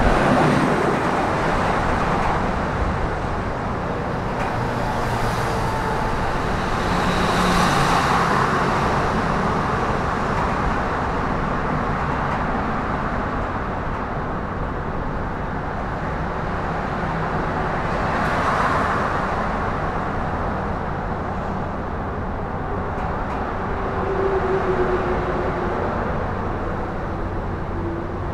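Steady road traffic noise, with vehicles passing now and then that make it swell and fade.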